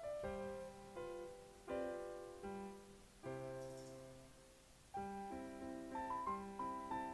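Background music of slow piano chords, each struck and left to ring out, roughly one every one and a half seconds.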